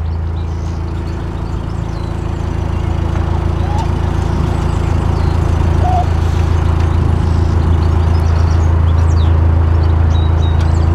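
Narrowboat engine running with a steady low drone, growing louder from about two seconds in as the boat moves on. A few faint bird chirps near the end.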